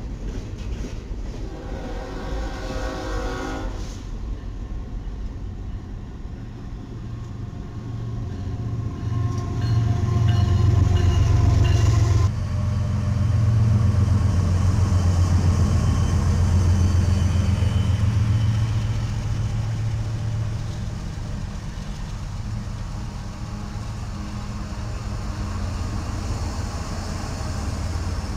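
A freight train's multi-note horn blowing over the rumble of passing freight cars, stopping about four seconds in. Then comes the deep, steady rumble of Norfolk Southern diesel locomotives passing close by, loudest in the middle and easing off toward the end.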